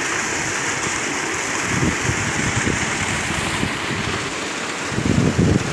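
Water from a running tubewell gushing out of a pipe into a concrete bathing tank, a steady rushing splash. Near the end, low rumbling gusts of wind on the microphone come over it.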